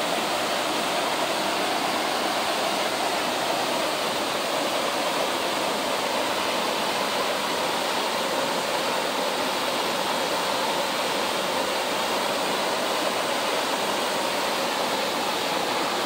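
Horsetail Falls, a tall, narrow waterfall, pouring into its plunge pool: a steady, even rush of falling water.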